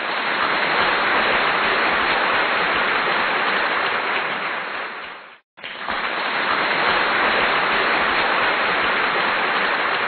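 Steady hissing noise, like rain or static, with no tones or voices. It cuts out briefly about five and a half seconds in and then resumes.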